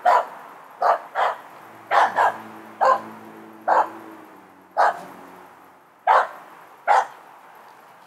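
Finnish Spitz barking at a squirrel up in a tree: about ten sharp single barks, roughly one a second. This is the breed's bark-pointing at treed game.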